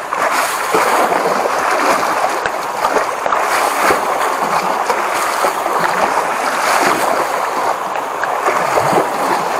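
A wooden pole beating and churning muddy creek water along an undercut bank, a continuous rough splashing. The water is being beaten to flush fish out of the bank holes toward a gillnet.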